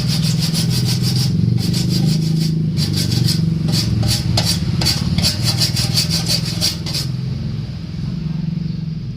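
Fast, even back-and-forth scraping strokes cleaning down a fresh weld on an aluminium refrigerator evaporator to flatten it; the strokes stop about seven seconds in. A steady low hum runs underneath.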